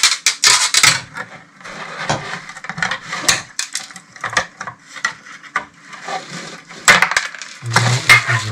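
Handling noise as the coiled wire loop of a magnetic loop antenna is cut free and unwrapped: irregular crackling and sharp clicks, thickest in the first second and again near the end.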